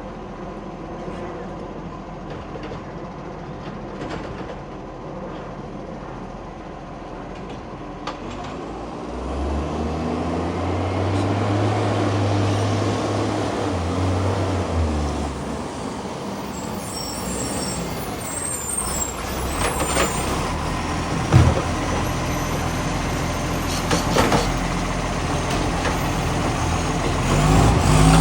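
Garbage truck's diesel engine running, revving up and holding for several seconds before settling, then revving again near the end, with the rasp of a loud exhaust leak. Sharp clunks about 21 and 24 seconds in.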